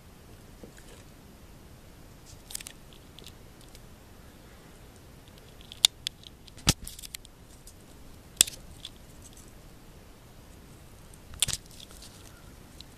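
A handful of sharp, separate clicks and knocks from handling around a terrarium, spread out with the loudest cluster around the middle, over a faint steady hiss.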